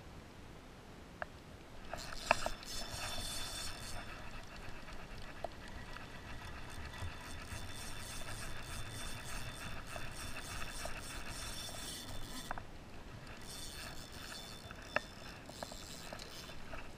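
Spinning reel cranked to retrieve line: a steady whirring rattle of its gears from about two seconds in, pausing briefly near thirteen seconds, then cranking again. Sharp clicks come through, the loudest about two seconds in and another near fifteen seconds.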